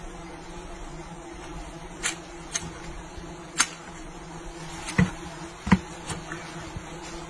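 Bees buzzing in a steady low hum around an exposed hive, broken by several sharp clicks and knocks, the heaviest two about five seconds in.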